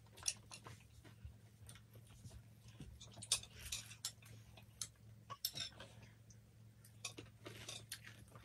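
Quiet eating sounds: scattered clicks and smacks of chewing and of fingers picking at fried fish on a foil-lined tray, with a few brief rustles, over a low steady hum.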